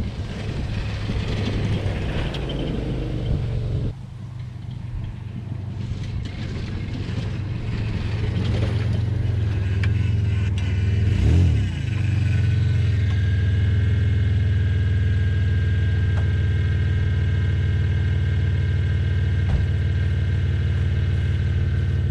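1998 Toyota 4Runner with a completely worn-out shock driven around a track corner: the engine runs with rattling knocks over the first few seconds, revs up about halfway through, then runs steadily under load.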